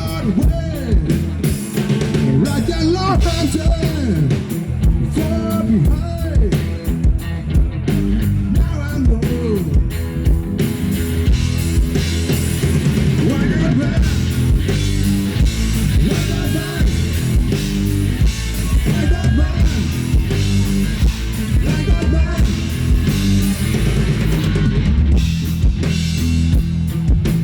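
A rock band playing live with electric guitar, bass and drum kit, through a passage without sung lyrics.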